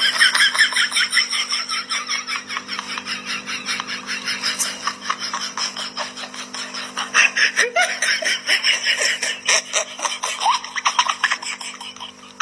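A person laughing hard and without a break in a rapid, high-pitched ha-ha-ha, about five a second, over a faint steady hum.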